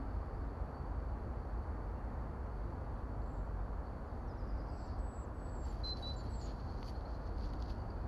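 Steady low rumble of wind buffeting the microphone. In the second half come a few short, high bird chirps and whistles.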